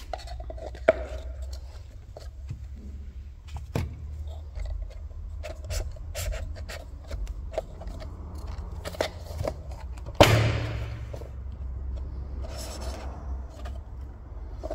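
Oil filter housing cap and paper filter element being handled: small clicks, taps and scrapes, with a sharp click about a second in and a louder knock about ten seconds in.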